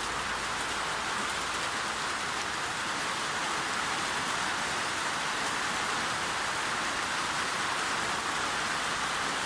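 Steady rain shower falling, an even, unbroken hiss of drops.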